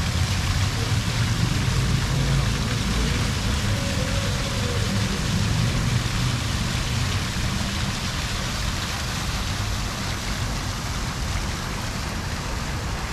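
City street ambience: a steady hiss with the low rumble of traffic, heavier in the first half and easing off after about eight seconds.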